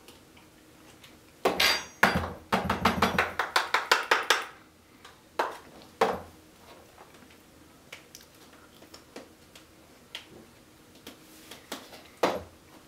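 Spoon clinking and scraping against a stainless steel mixing bowl and small jars as thick cream is scooped out and tapped off. There is a quick run of clinks for about three seconds, starting a second or so in, then a few single taps.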